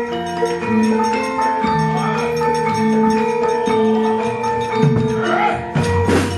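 Javanese gamelan playing: bronze metallophones ringing held notes in a shifting melody over deeper gong-like tones. About five seconds in, a run of sharp clattering strikes joins them, the sound of the puppeteer beating the keprak metal plates as the puppets move.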